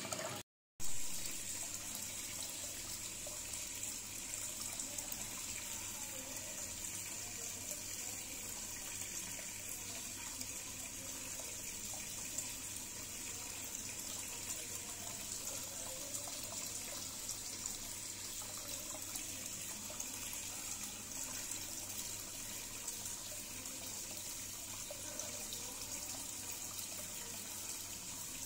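Steady splashing and trickling of water from a hang-on aquarium filter's return falling into the tank.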